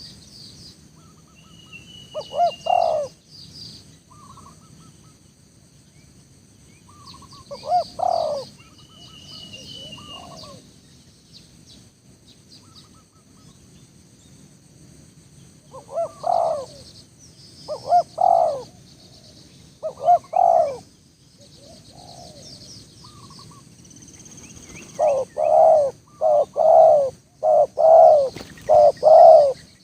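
Spotted doves cooing in repeated phrases, a few spaced calls at first, then a quick run of coos near the end. Small birds chirp faintly in the background.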